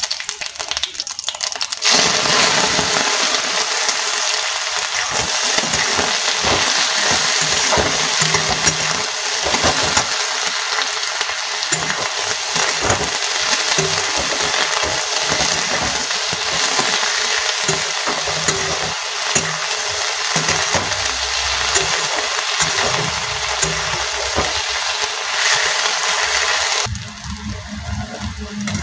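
Sliced onions sizzling and crackling in hot mustard oil in an aluminium kadai, stirred with a spatula. The sizzle jumps up about two seconds in, as the onions go into the oil, and falls away near the end.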